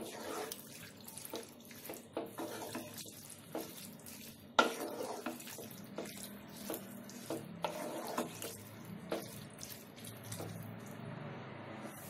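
A wooden spatula stirring whole moong dal, chicken and water in a non-stick pan: wet sloshing and scraping with light knocks against the pan, the sharpest a little under five seconds in.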